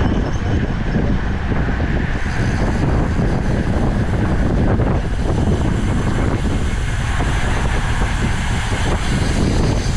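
Wind rushing over the microphone of a camera on a road bike in motion: a steady, loud rush with a deep rumble, and a little more hiss from about two seconds in.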